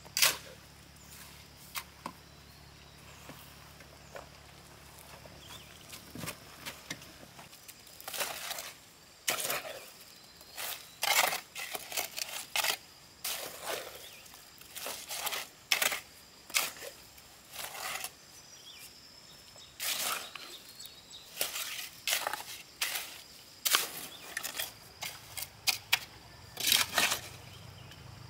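Steel shovel scraping and scooping wet cement mortar in short, irregular strokes, sparse at first and then coming every half second to a second, with a faint steady high tone underneath.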